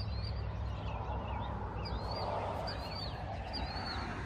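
A bird calling repeatedly, short high chirps roughly once a second, over a steady low rumble.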